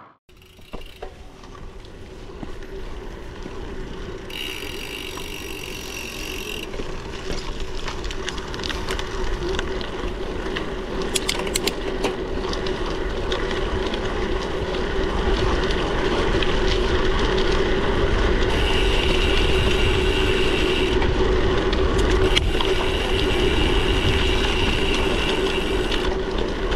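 Bicycle riding along a road: a steady hum and rumble of tyres and drivetrain with wind on the action camera's microphone, growing louder over the first several seconds. A higher buzz comes and goes about three times.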